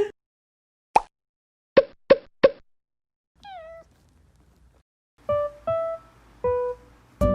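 Edited sound effects: a sharp click, then three quick plopping pops, a short falling cat meow, and three short pitched notes that ring out. Guitar music starts near the end.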